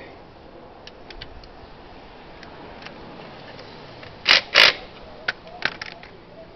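Sharp metal clicks from a torque wrench and socket on the GY6 scooter's crankcase cover bolts: a few faint ticks, then two loud clicks close together about four seconds in, followed by several smaller clicks.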